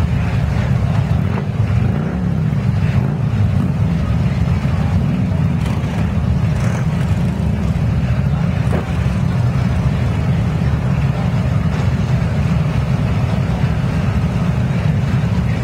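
A group of cruiser motorcycles idling together, a steady low rumble of many engines at once.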